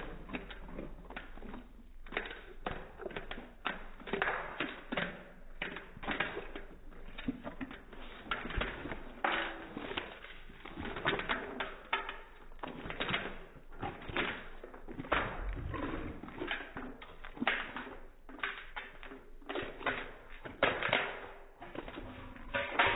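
Rottweiler eating chunks of raw meat from a stainless steel bowl: wet chewing and smacking, with irregular knocks of muzzle and meat against the bowl several times a second.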